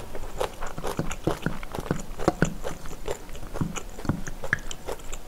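Close-miked chewing of a mouthful of food, a quick run of wet smacking clicks several times a second.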